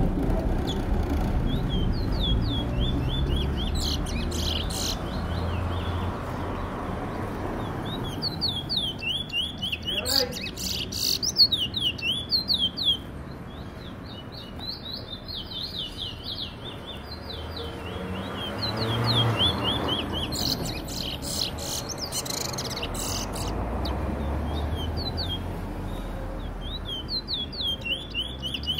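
Caged Trinidad 'bullfinch' (chestnut-bellied seed-finch) singing in repeated runs of rapid, high chirping notes, with short pauses between the runs.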